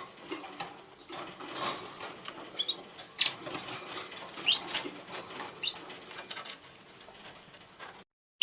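Budgerigars giving short, scattered rising chirps over a constant soft rustling and fluttering, a few chirps a few seconds apart; the sound cuts off near the end.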